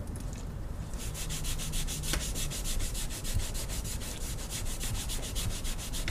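Rapid back-and-forth hand scrubbing on a metal machinist vise, cleaning off old grease and grime with acetone. A steady run of hissing strokes, several a second, starts about a second in.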